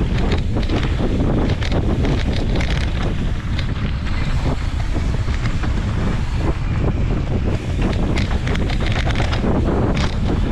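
Wind buffeting the microphone of a camera riding on a mountain bike during a fast descent of a dirt trail, over a steady low rumble of tyres on dirt. Many short clicks and rattles come from the bike over rough ground.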